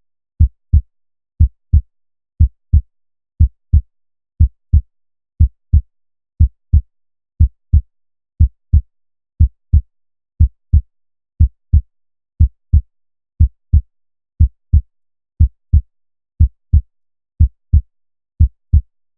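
A heartbeat beating steadily at about one beat a second, each beat a low double thump (lub-dub) about a third of a second apart, with silence between beats.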